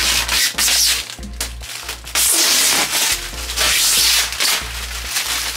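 Clear plastic protective film being peeled off a new fridge and crumpled by hand: loud crinkling and rustling in several bursts, the longest from about two to four and a half seconds in. Background music plays underneath.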